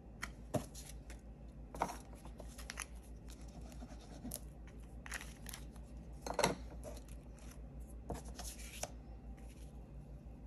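Cardstock pieces being handled and pressed together on a paper work sheet: light rustling and scraping, with a few sharper taps and clicks, the loudest about six and a half seconds in.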